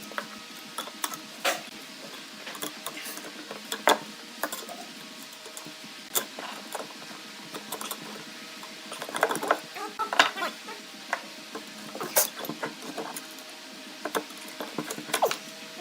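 Scattered clicks and knocks, with a busier patch of them about two-thirds of the way through, over a faint steady hum: handling sounds of tools and workpieces in a woodturning workshop.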